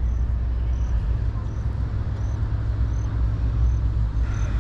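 Steady low rumble of road traffic, with a faint high-pitched chirp repeating about every two-thirds of a second.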